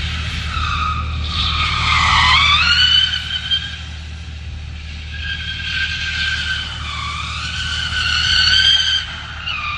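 Tesla Model 3's tyres squealing as it drifts. The squeal slides down in pitch and back up, swelling loudest about two seconds in and again near the end before dropping off suddenly.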